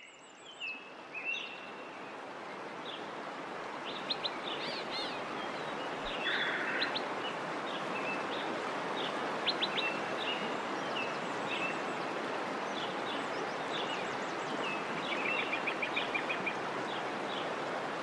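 Forest ambience: several birds chirping and whistling in short, scattered calls over a steady noisy background, which fades in over the first couple of seconds.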